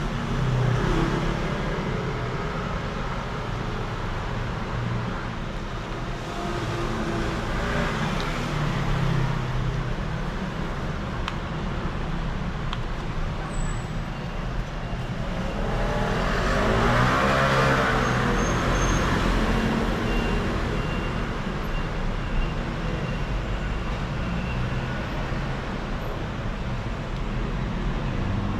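Steady road traffic noise. Near the middle, one vehicle passes by and swells louder, then fades.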